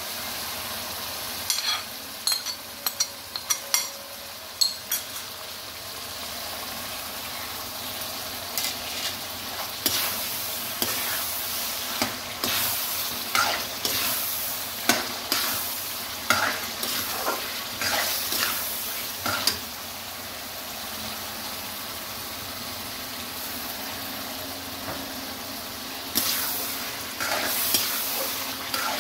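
Chicken and potatoes frying in masala in an aluminium wok, sizzling steadily, while a metal slotted spoon scrapes and clinks against the pan as they are stirred. The clinks come in spells of a few seconds, with a stretch of plain sizzling between about two-thirds of the way in and near the end.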